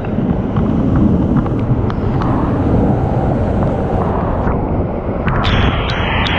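Waterfall pouring onto rock: a loud, steady rushing noise, heavy in the low end, that turns brighter and hissier about five seconds in.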